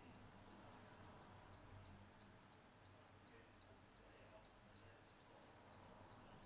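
Near silence: faint room tone with a steady low hum and a faint, regular high ticking about three times a second.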